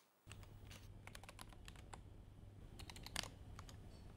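Typing on a computer keyboard: faint, irregular keystrokes, with one louder stroke about three seconds in, over a steady low hum.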